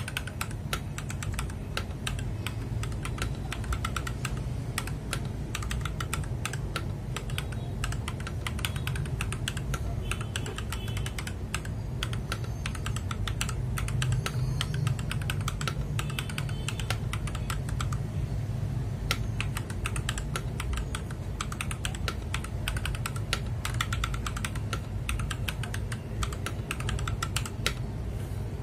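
Continuous fast typing on a Gamakay LK67 mechanical keyboard fitted with Akko switches: a dense run of key clicks that sounds crisp and solid, with the switches still unlubed.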